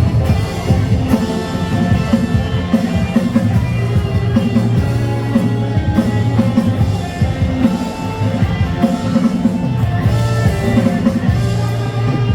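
Background music: an instrumental pop-rock passage with guitar and drums and a steady beat.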